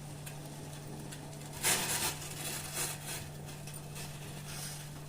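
Crushed ginger and spices being scraped and tipped into a pot of boiling water: a few short scraping rustles about two seconds in and again near three seconds, over a steady low hum.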